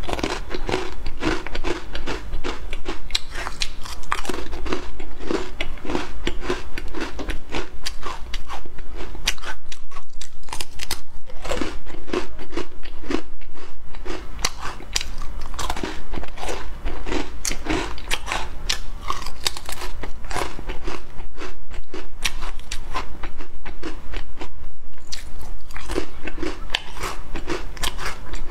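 Crisp caramelised biscuits being bitten and chewed: a close, dense run of sharp crunches, easing briefly now and then.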